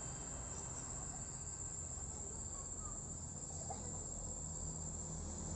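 Crickets chirring in one steady, unbroken high-pitched trill, with a low rumble underneath.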